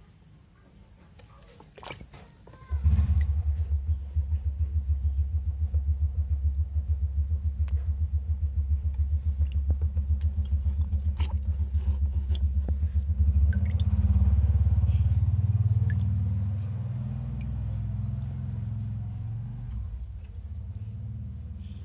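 A low, evenly pulsing engine-like rumble starts suddenly about three seconds in, swells around the middle, then fades toward the end. Faint small clicks and drips sound over it.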